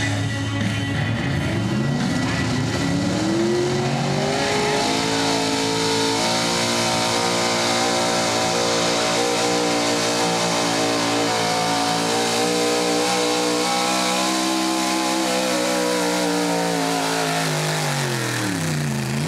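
Small-block V8 engine of a 4x4 pulling truck, under full load dragging a weight-transfer sled. It revs up steeply over the first few seconds and holds high rpm for about ten seconds, then drops off near the end as the pull finishes.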